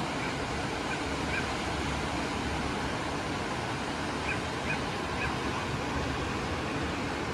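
Ocean surf breaking on the beach, a steady wash of noise, with a few faint, short bird calls about a second in and again four to five seconds in.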